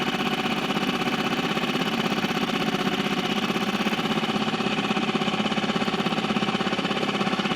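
Small boat outboard motor running steadily at low revs, an even pulsing beat with no change in speed.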